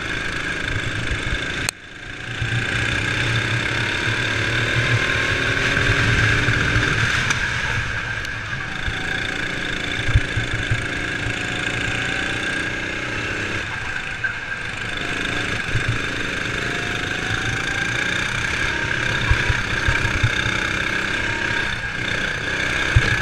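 Sodi RX7 rental kart's four-stroke engine running at racing speed, its pitch rising and falling with the throttle through the corners, with a few short knocks. The sound briefly drops out about two seconds in.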